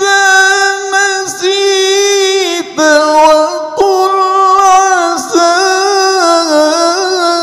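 A man reciting the Quran in the melodic tilawah style, holding long, ornamented notes at a high pitch with short breaks between phrases, amplified through a microphone.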